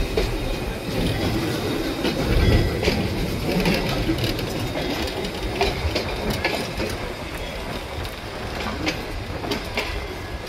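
Railroad cars, a hopper, a wooden passenger coach and a caboose, rolling slowly past on steel wheels, with a steady rumble and irregular clicks and clanks as the wheels cross the rail joints. A heavier low rumble swells about two and a half seconds in.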